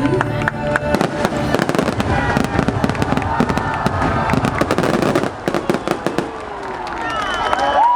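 Rapid barrage of fireworks bursts and crackling, dense and continuous for about five seconds before easing off. Crowd cheering and whistling begins near the end.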